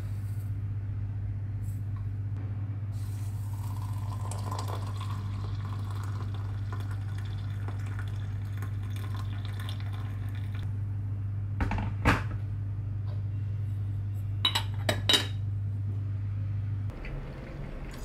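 Hot water poured from a kettle into a glass teapot over loose tea, running for several seconds, followed by a few sharp clinks of glass. A steady low hum sits underneath and stops near the end.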